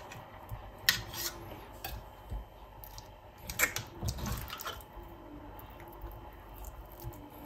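Metal spoon scraping and clinking against a stainless steel pot, with small wet splashes, as congealed beef fat is lifted off chilled bulalo broth. Sharp clicks come at irregular moments, a few of them close together about four seconds in.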